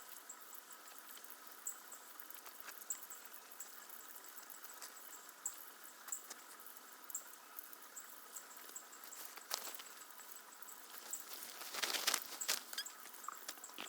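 Faint outdoor background with scattered short high-pitched ticks, and a brief burst of rustling noise near the end.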